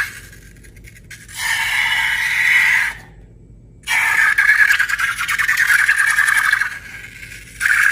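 Slime and balloons being squeezed and handled, with crackly, squeaky noise in stretches of a second or more. A sudden dead silence about three seconds in breaks it.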